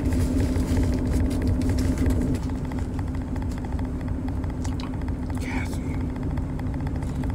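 Vehicle engine idling, heard inside the cab as a steady low hum with a constant drone, with a few faint clicks over it.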